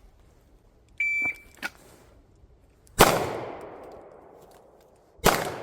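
Shot timer's start beep about a second in, then two pistol shots fired from the draw, about two seconds apart, each echoing and dying away slowly.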